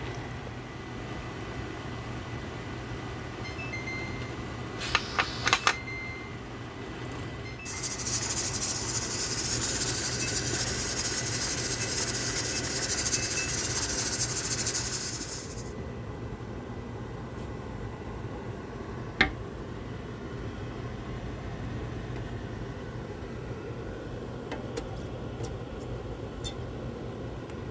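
Steam hissing steadily out of a stovetop pressure canner's vent for about eight seconds in the middle, over a steady low hum. There are a few quick clicks shortly before the hiss and one sharp click later.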